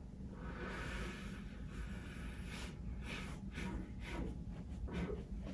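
A person breathing out through the nose during rhythmic pressing on the back. First comes one long breath out, then a run of short puffs of breath, about two a second.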